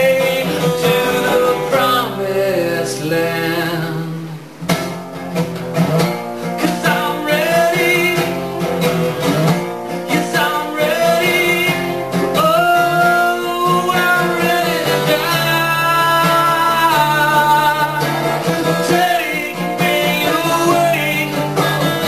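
Acoustic guitar strummed with a voice singing over it, a solo acoustic song. The playing thins out briefly about four and a half seconds in, then the strumming picks up again.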